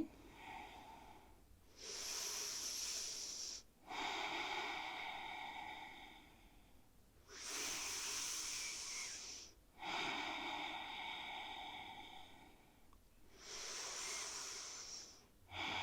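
A woman breathing slowly and deeply: three breaths in, each followed by a longer breath out that fades away.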